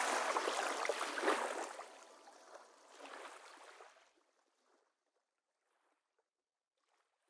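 Water rushing and splashing, fading out and gone about four seconds in.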